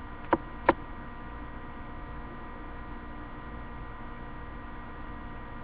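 Steady electrical hum and hiss from a webcam microphone, with two short taps in the first second, like the mic or laptop being bumped.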